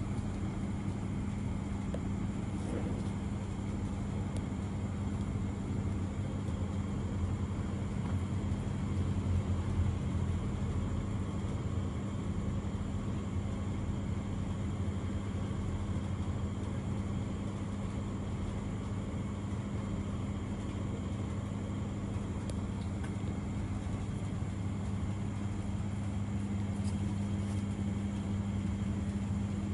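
A steady low mechanical hum with a constant low rumble under it.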